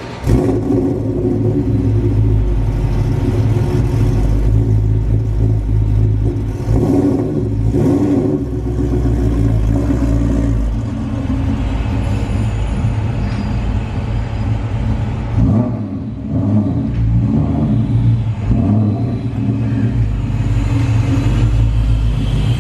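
Supercharged V8 of a Terminator Mustang SVT Cobra running at low speed as the car is driven slowly into a driveway: a steady low rumble with a few brief throttle blips.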